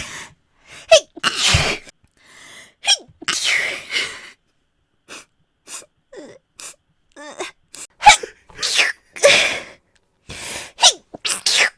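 A person sneezing again and again in quick succession: a series of sharp sneezes, each set off by a short, catching intake of breath, with brief pauses between them.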